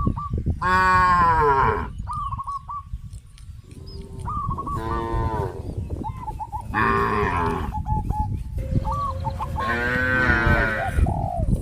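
Cows mooing, four long moos about a second each, one after another from different animals in the herd. Short bird chirps sound between the moos over a low rumble.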